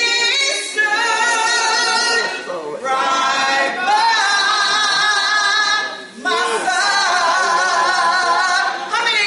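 A woman singing solo and unaccompanied. She sings three phrases of long held notes with vibrato, broken by short breaths about three and six seconds in.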